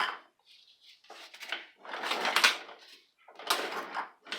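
Hands handling loose parts of an aluminum floor jack, making a few short scraping and clattering noises with a sharp click about three and a half seconds in.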